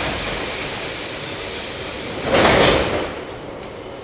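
Metro car doors opening at a station: a sudden pneumatic hiss of released air runs for about two seconds, then a louder rush as the door panels slide open, a little after two seconds in.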